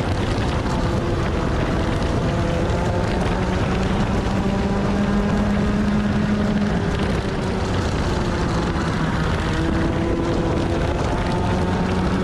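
Non-evo Rotax Max 125cc single-cylinder two-stroke kart engine heard onboard at racing speed, rising in pitch as it accelerates, easing off briefly about seven seconds in, then climbing again.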